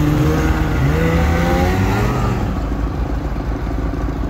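Polaris snowmobile engines revving as the sleds pull away, the engine pitch climbing in steps for about the first two seconds, then settling into a duller, steadier drone as they move off down the trail.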